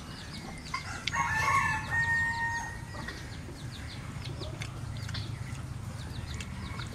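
A rooster crows once about a second in, a drawn-out call that ends on a held note, over faint repeated high chirps.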